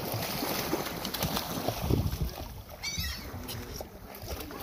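Brown pelicans splashing and flapping their wings at the water's surface right by the boat, with heavy low buffeting on the microphone that is loudest about two seconds in. A short, wavering high call sounds about three seconds in.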